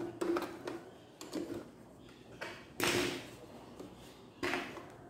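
Domestic electric sewing machine stitching in several short spurts, the longest about three seconds in, with light handling knocks between.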